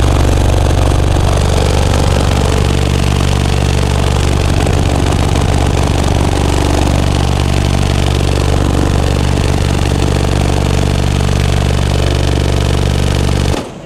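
Car audio system of ten Sundown Audio Team NEO 18-inch subwoofers on Dynamic Audio DA-7000.1 amplifiers playing a loud, steady deep bass note. It cuts off suddenly near the end.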